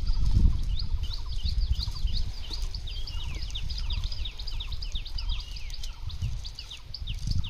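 Small birds chirping, a quick run of short calls several a second, over a steady low rumble.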